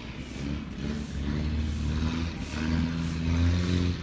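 A motor engine running and getting louder after about a second, its pitch holding steady for a second or so at a time and then shifting.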